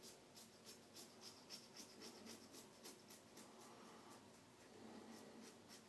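Faint, quick scraping strokes of an Apollo slant bar safety razor cutting lathered stubble on the upper lip, about four or five short scrapes a second, with a brief pause past the middle.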